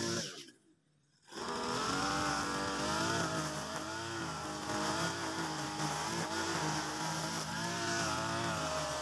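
Mitsubishi TU43 backpack brush cutter's small two-stroke engine running at cutting speed, its pitch rising and falling slightly as the nylon line cuts grass. The sound drops out about half a second in and comes back a second later.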